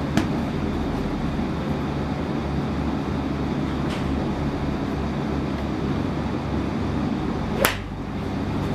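Golf club heads striking balls: a few faint sharp clicks and one loud, crisp strike about seven and a half seconds in, over a steady low rumble.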